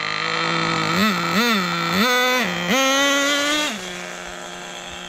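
Small nitro glow-plug engine of an RC snowmobile, exhausting through a homemade copper expansion pipe, idling, then blipped up in revs four times, the last rev held for about a second before dropping back to idle.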